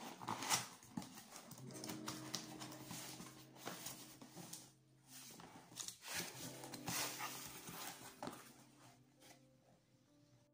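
Cardboard laptop box being opened by hand: flaps rustling and scraping, with taps and knocks on the cardboard, the loudest about half a second in. Soft background music plays underneath.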